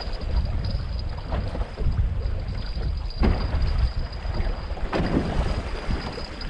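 Wind buffeting the microphone aboard a small open fishing boat, a steady low rumble with two short rushing noises about three and five seconds in.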